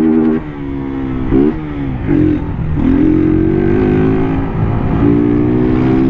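Motorcycle engine heard from the rider's seat while riding in traffic. The engine note drops about half a second in as the throttle eases, rises and falls briefly a few times, then holds a steady pitch with a small step up near the end.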